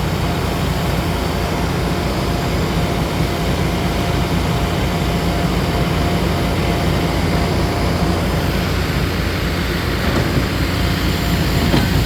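Heavy diesel paving machinery running steadily: a continuous low engine drone with a faint whine that drops away about eight seconds in.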